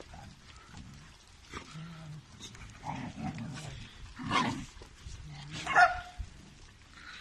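A large pack of dogs milling together, with scattered barks and whines; two louder barks stand out about four and a half and six seconds in.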